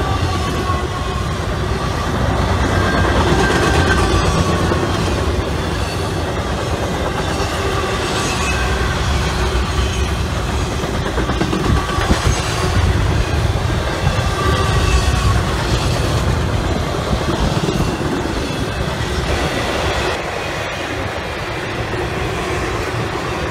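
Intermodal freight train of double-stack container cars and trailer flatcars rolling past at close range: a steady rumble of steel wheels on rail, with faint high wheel squeal coming and going.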